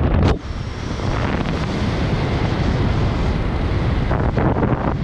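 Airflow rushing over the camera's microphone during a descent under an open parachute canopy: a loud, steady wind rush that drops off briefly about half a second in, then holds.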